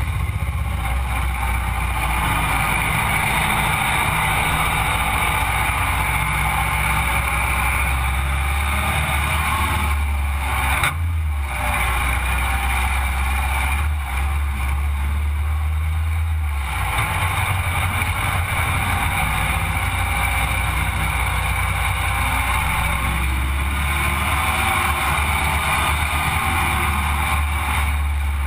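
Sandrail's engine running steadily while driving, with wind and road noise; the engine note shifts briefly about eleven seconds in and again around fifteen seconds.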